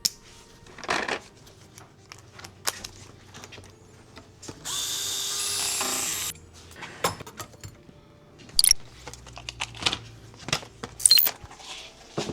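A power drill/driver runs in one burst of about a second and a half in the middle, amid scattered clicks and knocks of tools and parts being handled.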